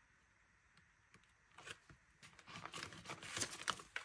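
Paper banknotes rustling and a clear plastic binder pocket crinkling as cash is pulled out and handled. It is faint, and it starts about one and a half seconds in.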